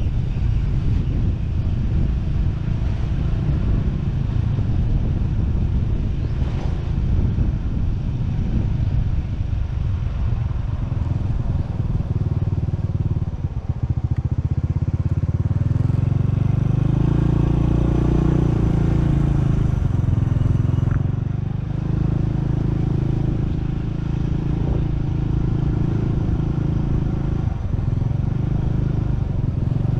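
Motorcycle engine running as it rides along the road, its pitch shifting with the throttle. It dips briefly about halfway through, then picks up again.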